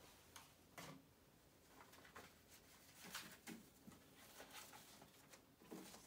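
Near silence with a few faint, scattered clicks and light rustles from handling a clear plastic container and a sheet of paper.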